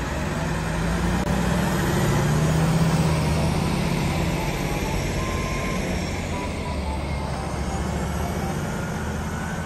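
Heavy-haul MAN tractor unit's diesel engine running steadily as it pulls a lowboy trailer loaded with a large excavator, with a deep hum and road and tyre noise. It is slightly louder a couple of seconds in as the rig passes.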